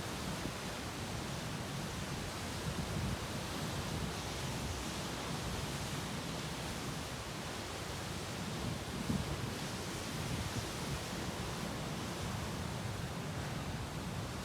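Sea waves breaking against rocks: a steady wash of surf, swelling slightly about three seconds and nine seconds in.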